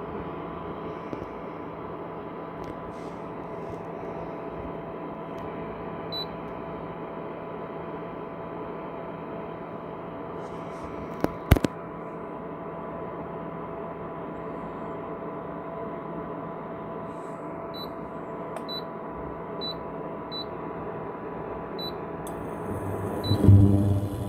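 Ailipu ALP-12 induction cooktop running: a steady fan hum and hiss with a faint whine. A single sharp click comes about halfway through, and a louder low buzz starts near the end.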